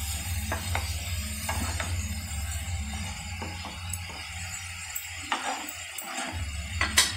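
A spatula stirring strips of beetroot and carrot in a frying pan, knocking and scraping against the pan in a handful of short clicks, over quiet background music.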